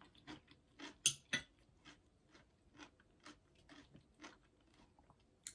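A person chewing food close to the microphone: soft, irregular mouth clicks and crunches, the loudest about a second in.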